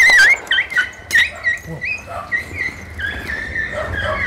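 A dog that has just been shot yelps in a quick run of short, high cries, then whines steadily from about three seconds in.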